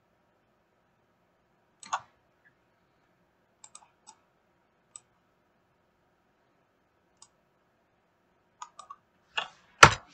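Scattered single clicks of a computer mouse and keyboard. They come a few seconds apart at first and bunch closer together near the end, where one click is much louder than the rest.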